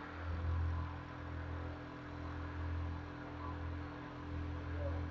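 CNC milling machines cutting a pocket with half-inch end mills, spindles running under flood coolant. A low hum swells and fades about every two seconds.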